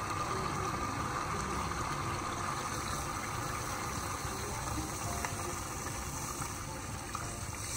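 A steady stream of water poured into a stainless steel pot of simmering chicken and potato masala, splashing into the sauce, as the water for the stock goes in.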